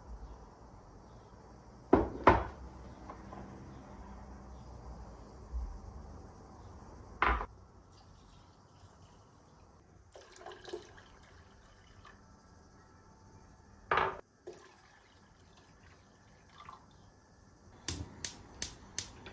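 Kitchen work sounds: a few sharp knocks of utensils or dishes against hard surfaces, spread out, with a quick run of four or five light taps near the end.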